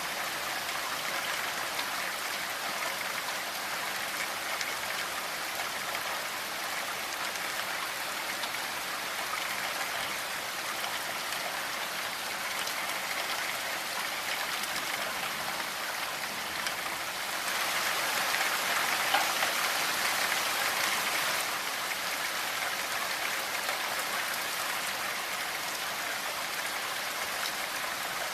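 Steady rain falling, an even hiss of many drops on a surface, swelling heavier for a few seconds past the middle before settling back.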